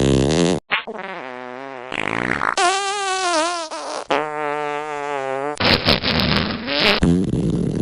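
A string of fart sounds spliced one after another, about seven short clips with abrupt cuts between them. Several are buzzy with a pitch that wavers or sags; a raspy, sputtering one comes about three-quarters of the way through.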